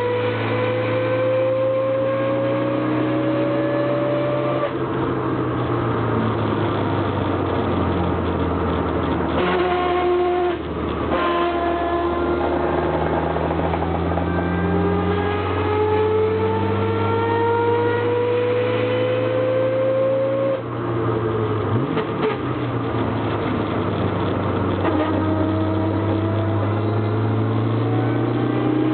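Car driving with a loud differential whine that rises in pitch as speed builds and drops back twice, at what look like gear changes. It is the abnormal diff noise the owner hears as a whine plus grinding on throttle out of slow corners, and which he suspects may be limited-slip differential chatter.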